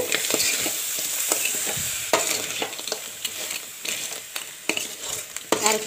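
Crab roast with drumstick pieces being stirred in a metal pan: a utensil scraping and knocking against the pan at irregular intervals over a steady sizzle of frying, growing quieter toward the end. The last stir on the flame, with crushed pepper just added, to dry off the remaining liquid before the dish is done.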